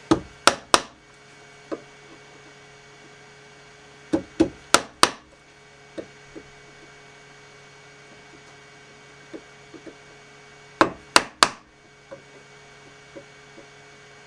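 Wood chisel being struck to chop out a recess for a screw head in a walnut block: three quick runs of three or four sharp blows, near the start, about four seconds in and about eleven seconds in, with a few lighter taps between. A steady low hum runs underneath.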